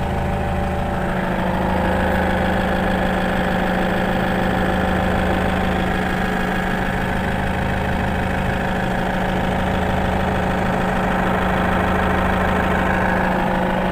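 Diesel engine of a Manitou telehandler idling steadily, heard from inside the operator's cab.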